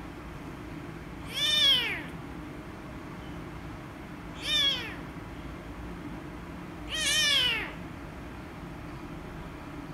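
A young kitten meowing loudly three times, a few seconds apart; each meow rises and then falls in pitch, the last one the longest.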